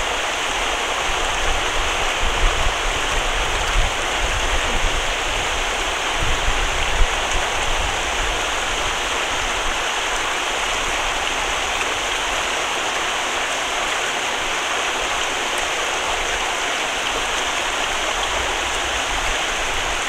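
Steady rushing of fast-flowing floodwater, an even, unbroken hiss.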